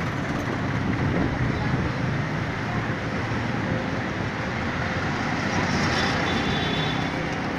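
Steady street traffic noise from vehicles idling and creeping in congested traffic, with a low, continuous engine hum from a city bus close by.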